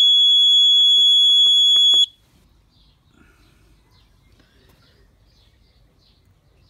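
Husqvarna Automower's anti-theft alarm sounding a loud, steady high-pitched tone after the mower has been tilted, still working on a battery that has been dead for about a day. Several keypad button clicks sound under it, and the alarm cuts off suddenly about two seconds in. Faint bird chirps follow.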